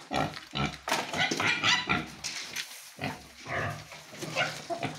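Domestic pigs grunting in a run of short calls, two or three a second.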